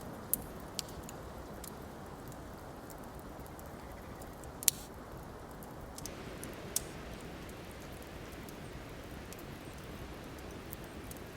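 Steady blizzard ambience: an even rush of wind-driven noise, with a few sharp clicks scattered through it. The loudest click comes a little over halfway through, and the rush turns slightly brighter after that.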